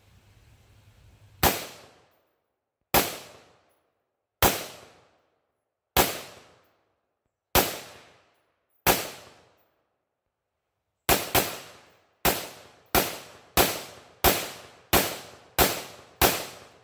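Anderson AM-15 semi-automatic rifle in 5.56 NATO, 16-inch barrel with birdcage flash hider, firing fifteen shots: six about a second and a half apart, then after a pause nine quicker ones, roughly two-thirds of a second apart, the first two of them nearly together. Each shot is a sharp crack with a short decaying echo.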